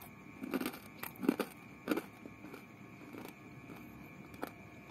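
Chewing and crunching of crispy fried food close to the microphone: a few crunches in the first two seconds, then fainter chewing.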